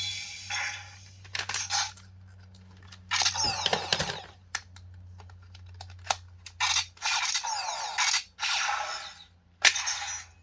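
Bandai Gokai Gun Memorial Edition toy blaster firing its electronic sound effects through its speaker: a string of short synthesized blasts, some with swooping tones, with sharp plastic clicks between them.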